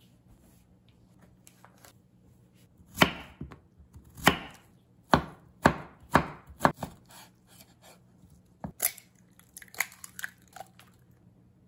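A chef's knife slicing through zucchini onto a wooden cutting board, about six sharp chops in the middle. Near the end comes a single knock and a few lighter clicks as an egg is cracked into a ceramic mug.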